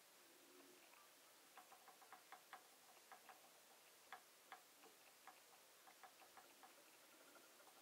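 Faint, irregular small ticks, about two dozen, from a Leverpresso hand-lever espresso maker held under pressure during a shot extraction.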